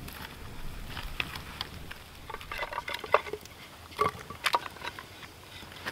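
Split firewood logs clunking and knocking as they are laid across a burning log fire, with scattered sharp crackles; the loudest knock comes about three seconds in, with a cluster of knocks around four seconds.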